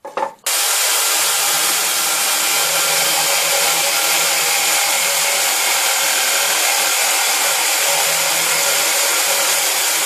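Power drill in a drill stand running at a steady speed, its flat wood (spade) bit boring a 22 mm hole through softwood into a backing block. The motor starts suddenly about half a second in and holds one steady whine throughout.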